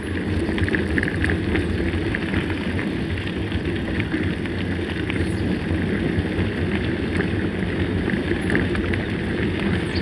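Mountain bike rolling steadily over a gravel dirt road: a continuous rumble of tyres on loose stones and the bike's frame rattling, picked up by a camera mounted on the bike.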